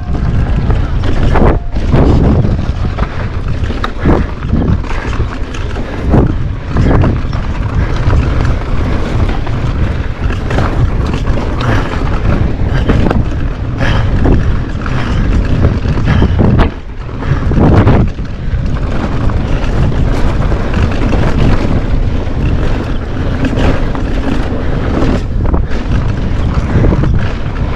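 Wind buffeting the microphone on a downhill mountain bike running fast down a dry dirt and rock trail, with a steady rumble of tyres on the ground and frequent sharp knocks and rattles as the bike hits bumps.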